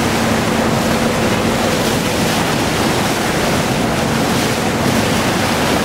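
Steady rush of sea water churned by a ship's bow as it cuts through the waves, with wind buffeting the microphone. A faint low hum sits under it for the first couple of seconds.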